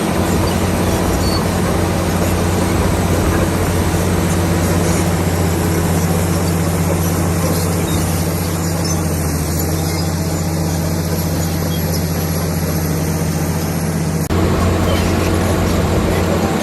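Komatsu D65PX bulldozer's diesel engine running steadily with a constant low drone, the sound changing abruptly about fourteen seconds in.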